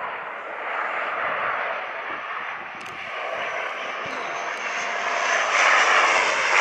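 Jet engines of a Ryanair Boeing 737-800 passing close by: a steady rush of engine noise with a faint high whine, growing louder toward the end.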